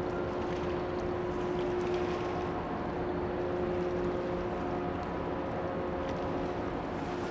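A container ship's engines and onboard machinery running: a steady drone with several held tones over a low rumble.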